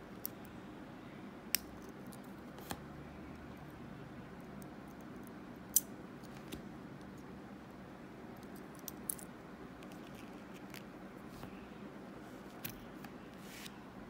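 Scattered small metallic clicks and taps of a lock pick and tension wrench working the wafers of a cam lock, with one sharper click about halfway through. Near the end a short rustle and clatter as the lock and tools are set down on cloth.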